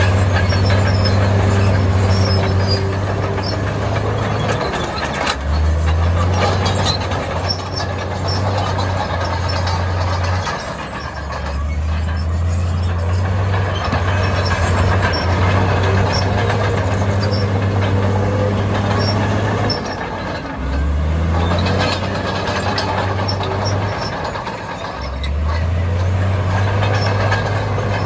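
Heavy diesel engine of earthmoving machinery running loud and steady, its speed dipping and then picking back up about four times as the load changes.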